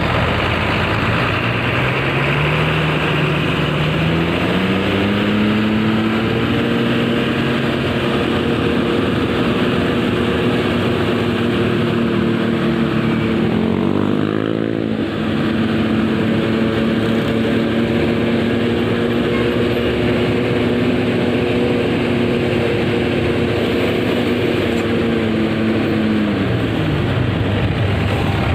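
Heavy diesel bus engine under way: its pitch rises over the first few seconds as it gathers speed, holds steady while cruising, dips briefly about halfway and recovers, then falls away near the end, over steady road noise.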